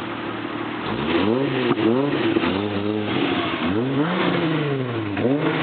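Volkswagen Passat VR6 engine and exhaust, fitted with Infiniti G35 exhaust tips, idling for about a second and then revved in a run of quick throttle blips, one held a little longer near the middle, each falling back toward idle.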